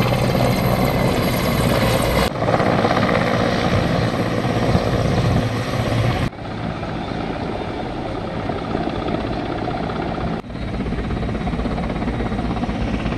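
Helicopter in flight: a steady rotor and engine noise with a rapid blade chop. The sound changes abruptly about two, six and ten seconds in, where the footage cuts between shots.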